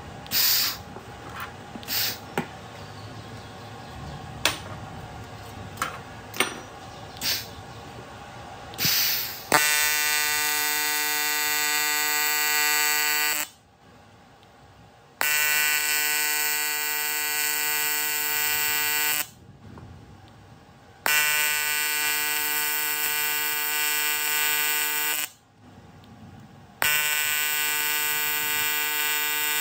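AC TIG welding arc on aluminium: a steady electric buzz that starts and stops four times, each run about four seconds long, cut off suddenly for a second or two between runs. Before the first run come several short bursts.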